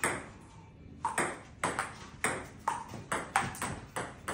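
Table tennis rally: the plastic ball clicks off the table and the paddles in quick alternation, about two to three hits a second, some with a short ringing ping. There is one hit at the start, then a short pause, and the rally gets going about a second in.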